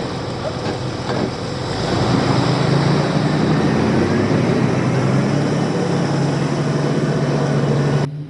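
Jeep Wrangler engine running under load on an off-road trail, over a steady rush of noise. The engine grows louder about two seconds in and holds a steady note, then the sound cuts off suddenly near the end.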